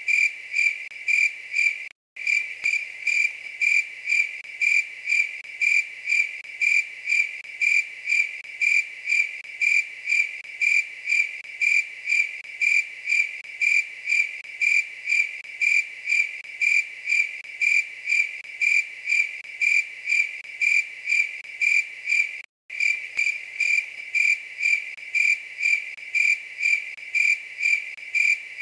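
Night-singing insect chirping in a steady, even rhythm of two to three clear, high, pure-toned chirps a second. The chirping cuts out for a split second about two seconds in and again about three-quarters of the way through.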